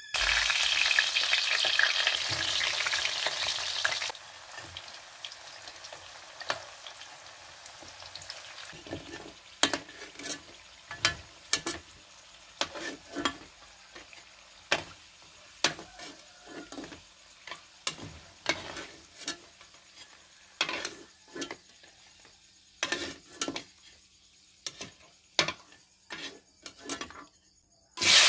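Sweet potato chunks frying in oil in a wok: a loud, even sizzle for the first few seconds that drops off abruptly, then quieter frying with many scattered pops and crackles, the loud sizzle flaring up again right at the end.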